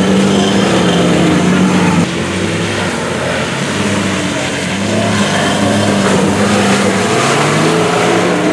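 Lada Niva's engine revving hard under load in deep mud, its pitch climbing and falling as the throttle works. The sound breaks off abruptly about two seconds in, then the engine is heard revving again.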